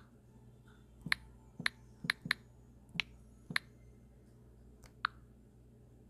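A series of short, sharp clicks or taps, about seven in all, spaced irregularly over quiet room tone.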